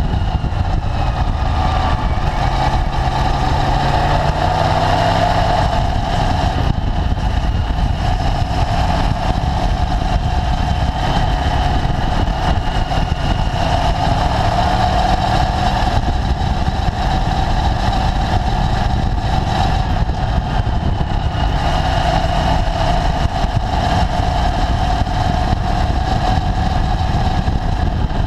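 Motorcycle riding at speed, heard from a camera mounted low on the bike: steady wind and road rumble under the engine note, which rises in pitch a few seconds in.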